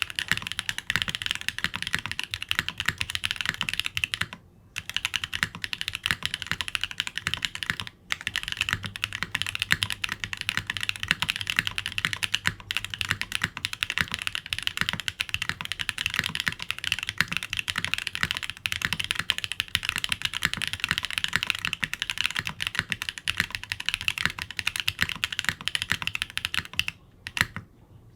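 Continuous fast typing on an NRD Kaze custom mechanical keyboard: x-ring mounted, polycarbonate half-plate, BSUN Guyu switches, GMK Shoko keycaps and no case or PCB foam. It runs as a dense stream of key clacks with two short pauses and stops shortly before the end.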